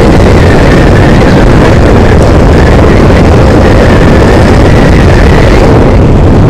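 Yamaha MT-15 motorcycle cruising in fourth gear at about 55 km/h: its single-cylinder engine drone mixed with wind rushing over the microphone, steady and loud.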